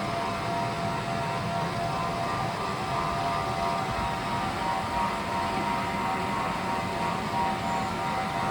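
Robot vacuum cleaner running: a steady motor drone with a held whine of several tones over a noisy hum.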